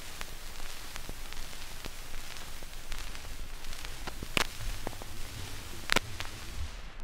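Surface noise of a 78 rpm shellac record after the music has ended: steady hiss and crackle with scattered clicks from the stylus in the run-out grooves, two louder pops about four and six seconds in. It cuts off abruptly at the very end.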